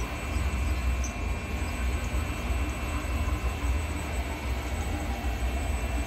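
Syil X7 CNC mill running with its table being jogged: a steady machine whir and hiss with a low rumble and faint constant high whine.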